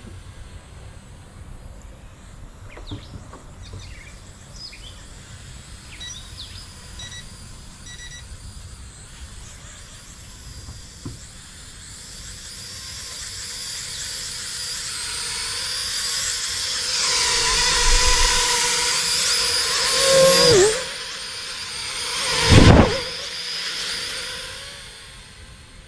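Small toy quadcopter drone's propellers and motors whining as it is started and flown, the high whine building up over several seconds and swelling sharply twice near the end. A few short electronic beeps come before the motors spin up.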